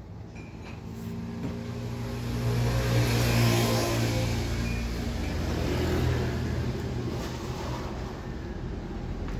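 Mini electric air compressor (a 12 V tyre inflator pump) running, its small piston motor giving a steady low drone that starts about a second in and grows louder over the next two seconds.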